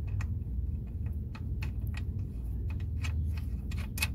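Light metal clicks and ticks of a locking nut and washers being handled and threaded by hand onto a bolt through a seat swivel bracket, coming faster near the end, over a low steady rumble.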